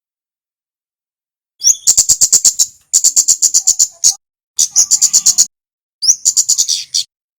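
Recording of a male kemade songbird singing. After about a second and a half of silence come four quick phrases, each opening with a short rising note and then running into a rapid string of sharp, high chipping notes at roughly ten a second.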